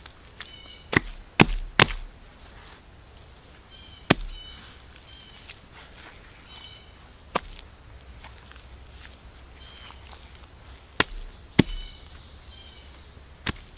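Wet clay slapped and packed by hand onto a heap on a flat stone: about eight sharp, wet slaps at irregular intervals, three in quick succession about a second in and two close together near the end.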